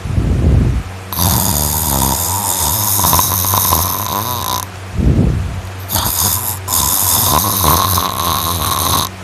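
A person snoring loudly in deep sleep: two snores about five seconds apart, each followed by a hiss lasting a few seconds.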